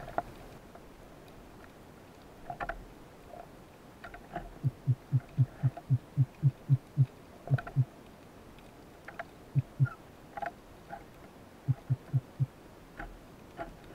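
Underwater sound: low, evenly spaced pulses at about four a second, in a run of about a dozen from about four seconds in, then a pair and a group of four, over scattered faint sharp clicks.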